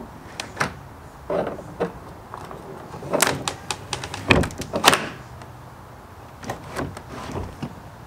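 Hobie Outback kayak's kick-up rudder being swung up and down on a freshly replaced rudder pin: a series of hard plastic clunks and knocks with some scraping as the blade pivots and its control cords pull, the loudest a little past the middle.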